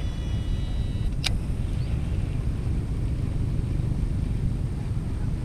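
Steady low rumble of a small boat's motor running. A metallic ringing fades out in the first second, followed by a single sharp click.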